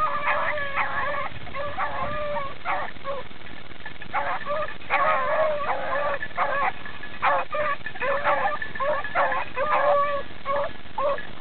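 A pack of beagles baying while running a rabbit on scent, several hounds calling over one another in quick, repeated bays.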